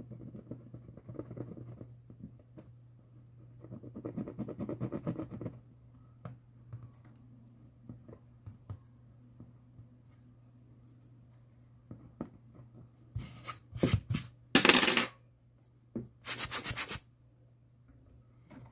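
Close-up scratching and rubbing of hand work on a small loudspeaker, with scattered small clicks. About two-thirds of the way through come two loud rasping bursts, the loudest sounds here. A steady low hum runs underneath.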